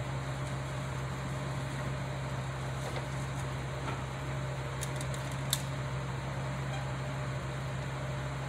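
Steady low machine hum under an even hiss, with a few faint clicks about halfway through.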